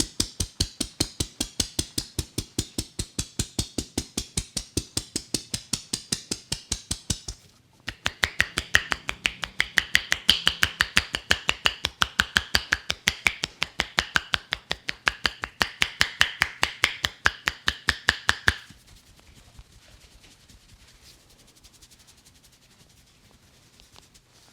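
A barber's hands striking a head in quick, even percussive massage strokes, about five a second. After a brief pause about seven seconds in, the strokes resume with a brighter sound, then stop near eighteen seconds, leaving only faint rustling.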